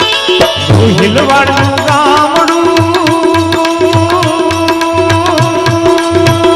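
Live Gujarati devotional folk music: a hand drum keeps a steady rhythm under a melody that glides about a second in, then holds one long, slightly wavering note.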